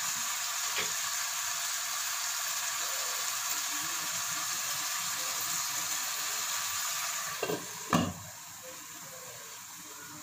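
Chicken pieces sizzling steadily in a nonstick pot. About eight seconds in, a glass lid goes on with a couple of knocks, and the sizzle drops to a quieter, muffled hiss as the pot is covered to cook on a low flame.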